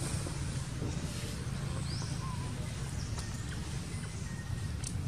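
Outdoor ambience: a steady low rumble with a few faint, short, high chirps and a thin faint whistle-like tone joining about halfway through.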